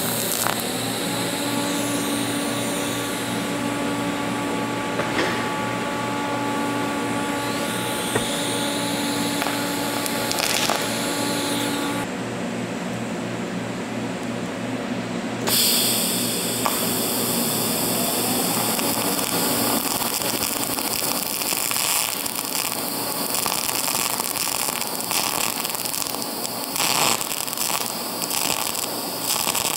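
TIG welding arc on brass, a steady hiss with a low hum underneath. The sound changes abruptly twice around the middle.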